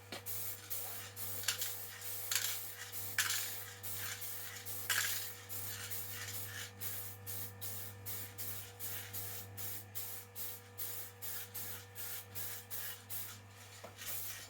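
Aerosol can of general-purpose acrylic spray paint hissing in short bursts as light coats are laid on. The first few bursts are longer, and after about five seconds they become quicker, shorter puffs of two or three a second.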